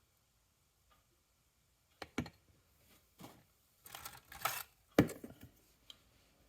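Close handling sounds of a small diecast toy and Teflon tape being worked onto its axle: a few light clicks, a brief rustle of tape, and a sharper knock about five seconds in, the loudest sound.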